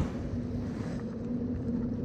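Steady engine hum at a constant pitch, over a low rumble of wind on the microphone.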